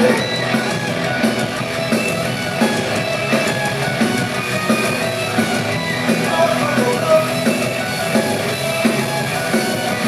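Rock band playing live, guitars and drum kit driving an instrumental passage between vocal lines.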